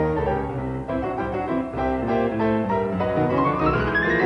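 Instrumental background music, a melody of sustained notes with a quick rising run of notes near the end.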